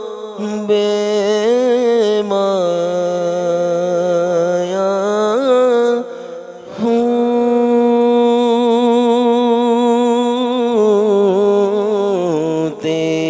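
A man singing a naat (Urdu devotional song) into a microphone. He holds long drawn-out notes with wavering, ornamented turns, and there is a brief break for breath about six and a half seconds in.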